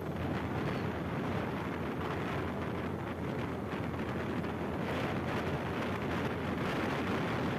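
Steady wind rush buffeting the microphone on a moving motorcycle, mixed with the bike's running noise.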